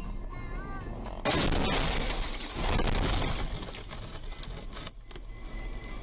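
A car crash heard through a dashcam: a sudden loud crash about a second in, a second loud burst about a second and a half later, then the noise dies away.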